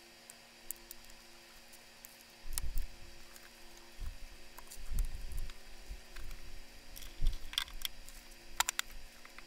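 Hands working a vehicle wiring harness: scattered sharp clicks and plastic rustling as zip ties are cut and the harness is pushed down against the firewall, with a few dull low thumps, a cluster of clicks near the end, and a faint steady hum underneath.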